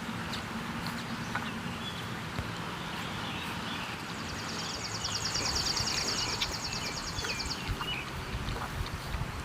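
Saint Bernard puppies eating, with scattered crunching and clicking sounds over a steady background noise. A high, rapid trill runs from about four seconds in to near the end.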